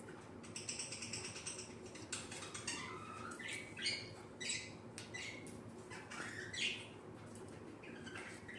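Cockatiel calling. A rapid chattering trill comes about half a second in, then a run of short chirps and squawks, several of them sliding up or down in pitch.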